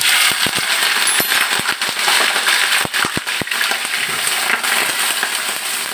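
Raw peeled shrimp hitting hot oil in a small saucepan: loud sizzling with sharp pops and crackles of spitting oil. The pops thin out after about three and a half seconds, leaving a steady sizzle as the shrimp are stirred with a wooden spatula.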